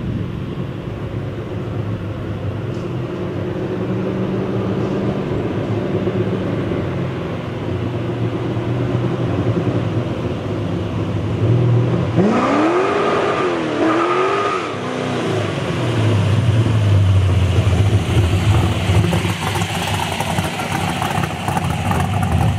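1968 Pontiac Firebird's engine running as the car comes up the street, revving up twice in quick succession about halfway through, then settling into a low, steady rumble as it draws close.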